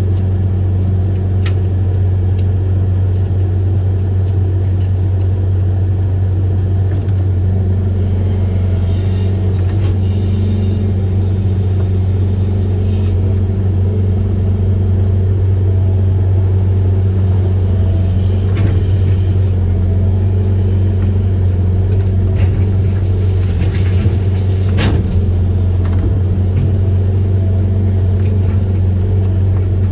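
Amphibious excavator's diesel engine running steadily with a deep, even drone, and a few short knocks from the machine at work.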